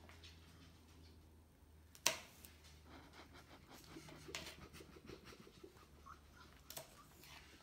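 Knife slicing bell peppers on a plastic cutting board: faint cutting and scraping strokes, with one sharp knock about two seconds in, over a low steady hum.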